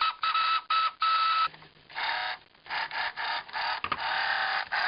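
Battery-powered sound effects of vintage 1978 Kenner X-Wing and TIE Fighter toys: a small motor drives a gear against a clear hard plastic piece, making buzzing laser-fire bursts. Several short bursts come in quick succession, then one longer continuous buzz near the end.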